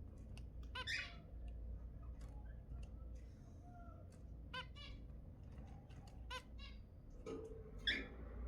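Zebra finches calling: short, sharp calls every second or two, with a few softer chirps between them.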